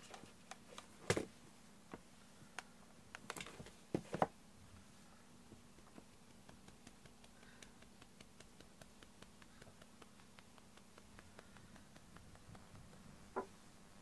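Hand stroking and scratching a resting cat's fur: scattered soft scratchy rustles and a few sharp knocks, the loudest about a second in and around four seconds in, with faint quick ticks between and one more knock near the end.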